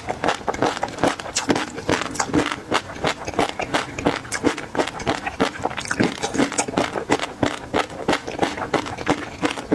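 Close-miked chewing of a mouthful of peanut sauce and garlic: a quick, even run of wet mouth clicks and smacks, several a second.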